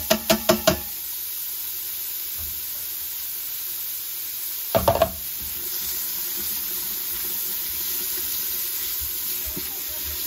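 Onions and celery sizzling in hot oil in a pan as they are sautéed and stirred. A quick run of about six knocks comes in the first second, and a short cluster of knocks about five seconds in.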